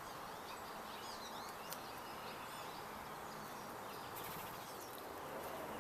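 Small birds chirping, with quick rising and falling calls that are thickest in the first half, over a steady outdoor background hiss.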